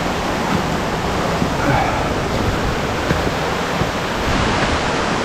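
Mountain stream rushing over rocks, a steady, even rush of water.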